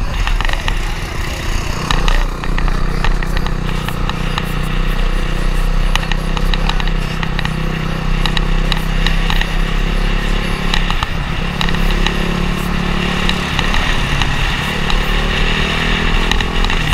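Dirt bike engine running steadily at riding speed, heard from the rider's own bike with heavy wind buffeting on the helmet-mounted microphone.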